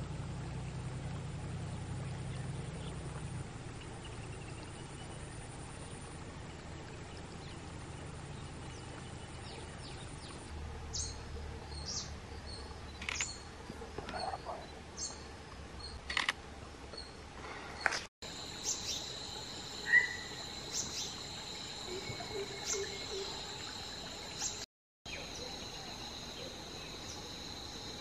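Outdoor ambience: a low rumble in the first few seconds, then scattered short high bird chirps from about ten seconds in, joined by a steady high insect buzz about two-thirds of the way through.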